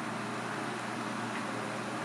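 Steady background hum and hiss, with no distinct knife strikes.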